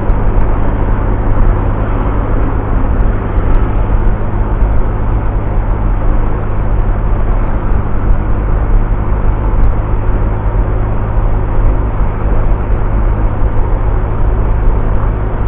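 Steady rumble of wind on the microphone while riding a Honda Vario scooter at cruising speed, with the scooter's engine humming steadily underneath.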